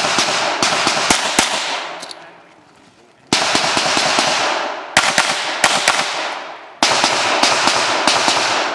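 Pistol shots fired in quick clusters of two to four, a dozen or so in all. Each group trails off in a long echoing rush.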